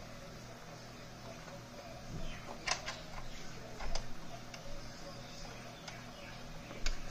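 Small screwdriver turning a tiny screw into a sewing machine's needle plate: a few light, spaced metal clicks and taps.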